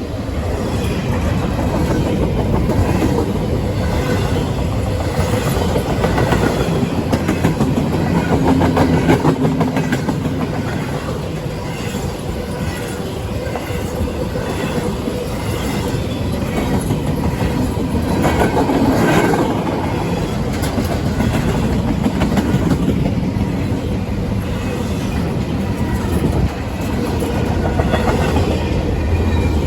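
A double-stack container freight train's cars rolling past at close range: a steady rumble of steel wheels on rail with rapid clickety-clack over the rail joints.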